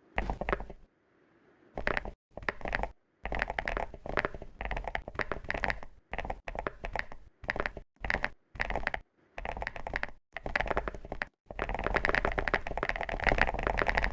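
Chocolate crackling and crunching in a run of short clips, each cut off abruptly into silence; the last couple of seconds become one longer, denser stretch.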